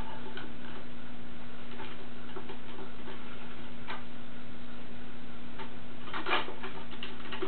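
Hard plastic toy parts clicking as capsule pods are fitted onto a transforming robot toy: a few light, irregular clicks, then a quick cluster of them about six seconds in, over a steady low hum.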